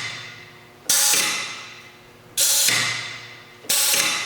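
Larry's Clamp LD3600 board flattener being cycled: three sudden bursts of hiss as its controls are worked, each cutting in sharply and fading away over about a second.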